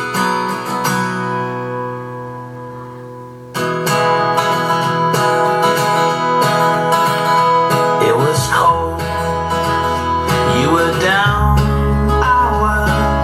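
Acoustic-guitar pop song played through a JVC XL-MV7BK amplifier and speakers. A held chord fades, then the full band comes in suddenly about three and a half seconds in, with deep bass joining later.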